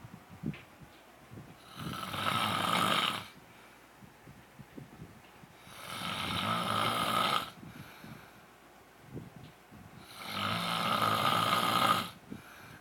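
A man snoring: three long snores about four seconds apart, each lasting a second and a half or so, with quiet breathing between them.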